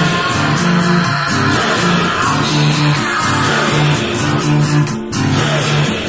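Rock music with guitar over a steady beat, with a brief break about five seconds in.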